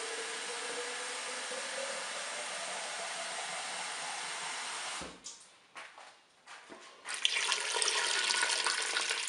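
A steady hiss that stops about five seconds in, a few soft knocks, then water poured from a jug splashing onto beetroots in a Cookeo multicooker's inner bowl from about seven seconds in.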